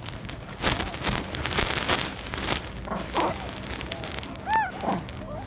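Young long-tailed macaque crunching and chewing a bite of apple for the first couple of seconds, then a few short high monkey squeaks, the clearest about four and a half seconds in.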